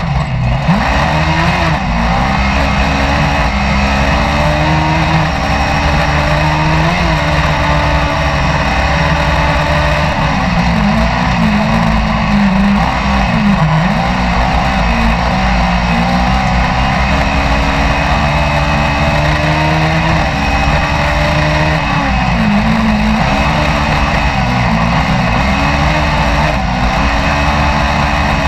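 Engine of a caged dirt-track racing car heard from onboard, running hard throughout, its pitch dropping and climbing back several times as the driver lifts off and accelerates again.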